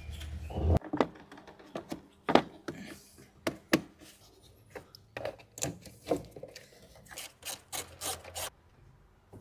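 Paper towel rubbing over plastic hoses and housings in a car's engine bay as spilled coolant is dried up, with scattered light clicks and knocks of handling. A low hum cuts off under a second in.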